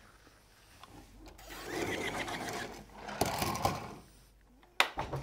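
Cutter carriage of a fabric cutting table run along its straight-edge rail to trim roller-blind fabric: a mechanical sliding whirr lasting a second or two, a short second run, then two sharp clacks near the end.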